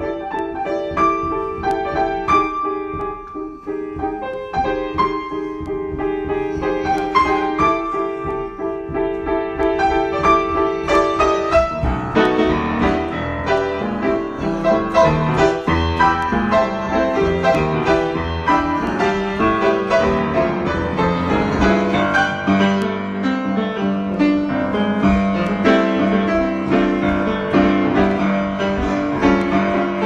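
Solo grand piano being improvised on: held low chords under a sparse melody, then fuller, busier playing across the keyboard from about twelve seconds in.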